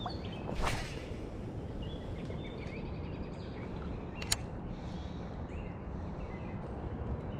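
Steady low outdoor rush of creek and air with faint songbird chirps scattered through it, and one sharp click about four seconds in.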